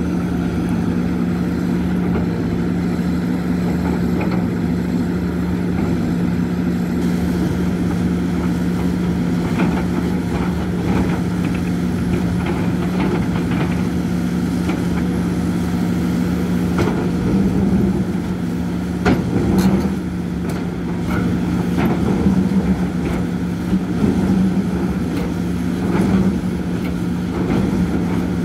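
Hidromek HMK 230LC H4 tracked excavator's diesel engine running steadily while it digs, with scattered sharp knocks and scrapes of the bucket in soil and stones, clustering in the second half.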